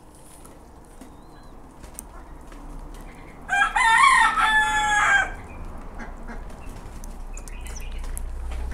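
A rooster crowing once, starting about three and a half seconds in and lasting nearly two seconds.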